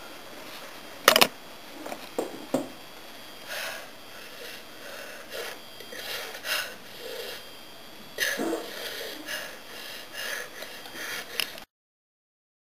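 Irregular rustling and scraping handling noises with a few knocks, a sharp knock about a second in and another about eight seconds in; the sound cuts out suddenly near the end.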